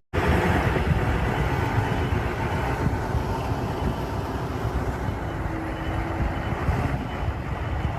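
A motor vehicle running steadily, a continuous engine and road noise with no distinct beat.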